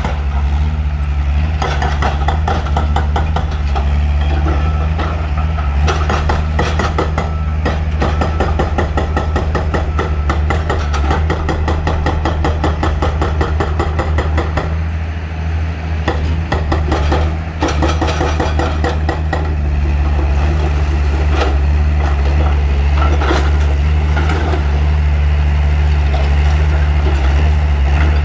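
Tracked excavator's diesel engine running steadily under load as it tears down a stone-clad masonry building, with irregular clatter and crashes of falling stones and rubble.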